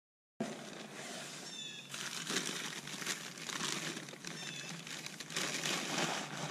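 Newspaper crinkling and rustling as a glass bottle is unwrapped from it by hand. The sound starts suddenly about half a second in.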